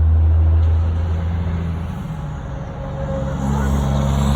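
Car engine running low as the car creeps slowly forward; the engine note drops back for a moment and rises again about three seconds in.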